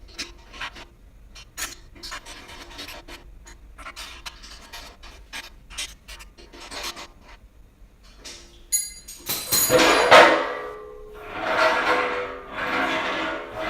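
Metal dolly parts and bolts being handled during assembly: light clicks and rattles at first. From about nine seconds in come louder waves of rasping, scraping metal with a ringing tone.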